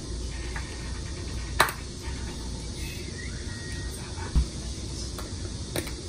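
Plastic squeeze bottle of mayonnaise being handled over a low room hum: a sharp click about a second and a half in, then a soft low knock a few seconds later as the bottle is set down on the countertop, and a smaller click near the end.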